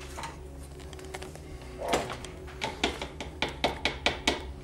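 A run of sharp, irregular clicks and taps, about nine in a couple of seconds, as the mixing rod and cordless drill are handled on the table after mixing.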